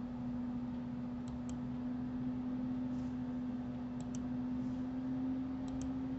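Computer mouse clicking: three pairs of quick clicks a couple of seconds apart, over a steady low electrical hum.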